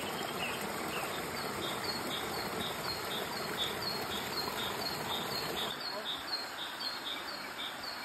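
Stream water rushing and splashing over rocks as a steady hiss, with a high chirp repeating about twice a second above it.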